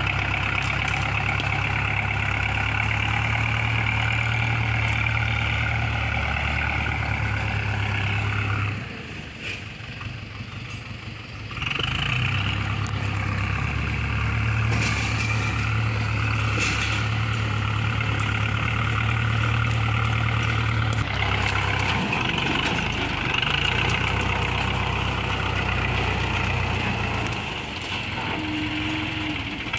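Iseki 6010 tractor's diesel engine running steadily under load while working the field. It dips for about three seconds roughly nine seconds in, then picks up again.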